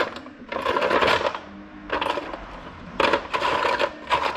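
Rummaging through a box of loose small metal parts, searching for a cotter pin: three bouts of metal clinking and rattling.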